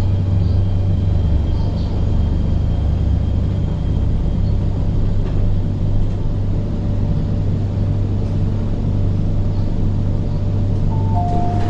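Steady low hum and rumble of an MTR Tseung Kwan O Line train car standing at a station platform with its doors shut. Near the end two short chime tones sound, a higher then a lower one, as the doors are about to open.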